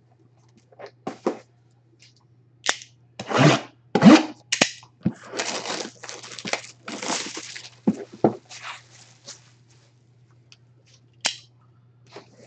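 A sealed memorabilia box being torn open: wrapping and cardboard ripping and crinkling in a run of irregular tears, heaviest about three to five seconds in, then a single sharp click near the end.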